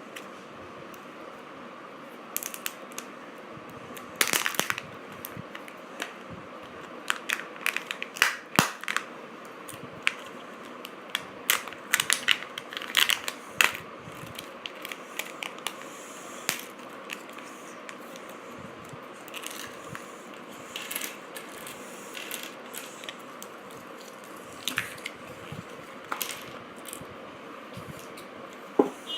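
Crinkling and tearing of a Kinder Joy egg's plastic wrapper being handled and opened: irregular sharp crackles, busiest in the first half and more scattered later.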